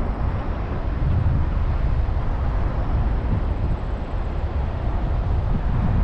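Wind buffeting the microphone of a camera moving along a road: a steady, fluttering low rumble with a hiss above it, no engine note standing out.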